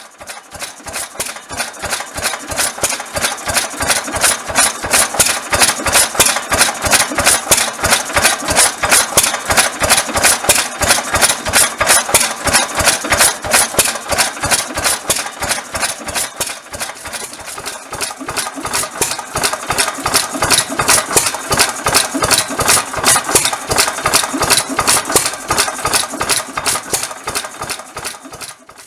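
1922 Bentall Pioneer 3–4 hp vintage stationary engine running after its rebuild, with a steady, even beat of exhaust knocks. The level dips briefly about two-thirds of the way through, then picks up again.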